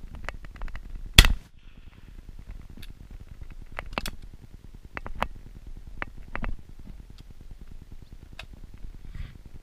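A single shotgun shot about a second in, followed by a scatter of sharper clicks and knocks of the gun being handled.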